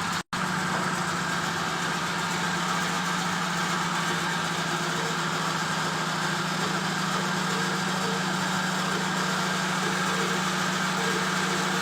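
Heavy machinery of a mobile crusher plant running steadily, with a constant low hum under a wide mechanical hiss. The sound cuts out for an instant just after the start.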